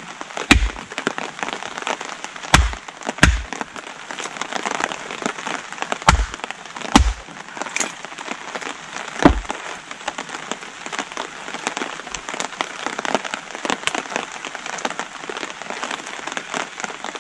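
Small axe chopping little logs into kindling on a wooden block: six sharp chops with a dull thud, spread unevenly over the first ten seconds. Steady heavy rain patters throughout.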